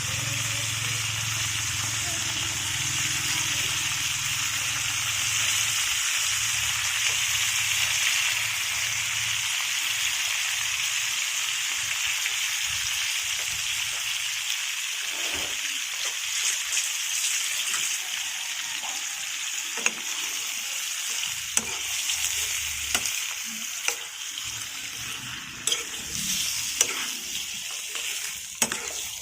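Chicken pieces frying in margarine and garlic in a frying pan, a steady loud sizzle. From about halfway through, a utensil knocks and scrapes against the pan as the chicken is stirred.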